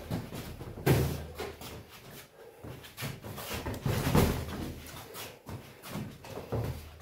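Boxing gloves thudding on gloves and headgear during heavyweight sparring: a run of irregular thuds, the loudest about a second in and just after four seconds.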